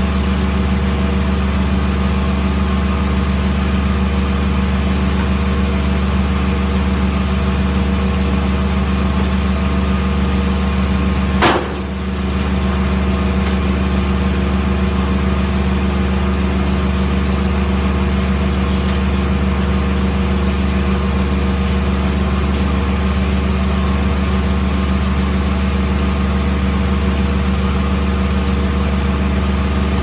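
The engine powering a Foley Belsaw M-14 circle sawmill runs at a steady speed. There is one sharp knock about a third of the way in, after which the sound dips briefly.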